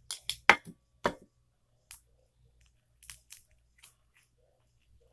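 Slime being squeezed and poked in the hands, giving sharp crackling clicks and pops. A quick run of loud ones comes in the first second or so, then a few fainter ones.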